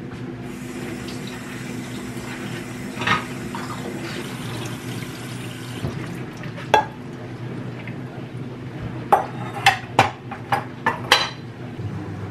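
Dishes and cutlery clinking while being washed up by hand and set into a wire dish rack, over running tap water for the first half. There are single clinks about three and seven seconds in, then a quick run of about six near the end, over a steady low hum.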